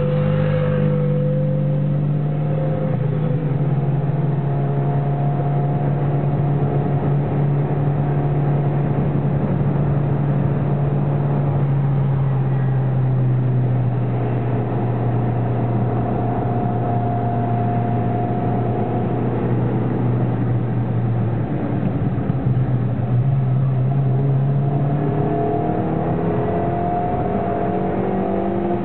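Toyota Yaris 1.0 (67 hp) engine heard from inside the cabin, pulling hard on track over steady tyre and road noise. The engine note drops in pitch about three seconds in, holds steady for a long stretch, then climbs in pitch over the last few seconds as the car accelerates.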